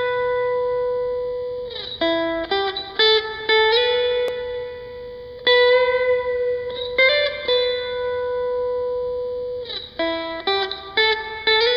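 Guitar music: short runs of plucked guitar notes alternating with long held, ringing notes, with no singing.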